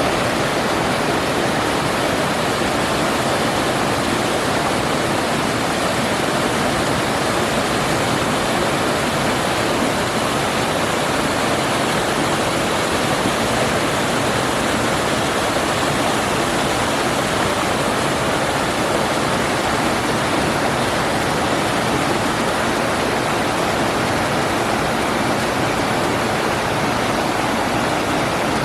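Waterfall: falling water rushing in one steady, unbroken sound that does not change.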